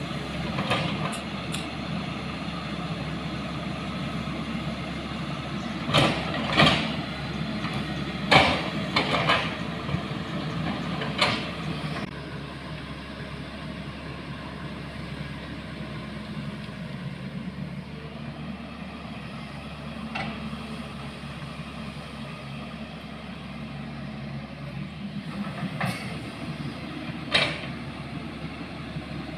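A motor vehicle's engine running steadily, with several sharp knocks and clatters, a cluster of them in the first third and two more near the end.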